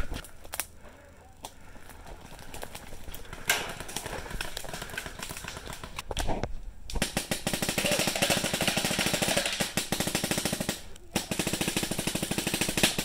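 Paintball marker firing. A few scattered shots come first, then two long, rapid strings of shots in the second half, broken by a short pause.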